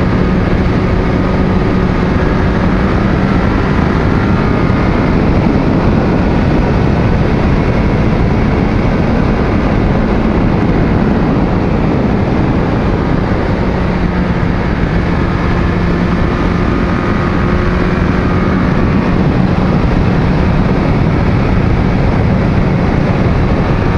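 Onboard sound of a 2002 Yamaha FZ1 at riding speed: heavy wind rush over the microphone, with the 1000cc inline-four engine holding a steady note under it. The engine note fades into the wind through the middle stretch and comes back later.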